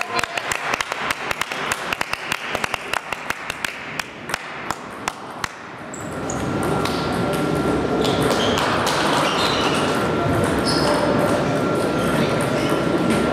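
Table tennis rally: the ball clicks sharply off bats and table several times a second for about five seconds. Then the rally stops and a louder, steady hall noise takes over.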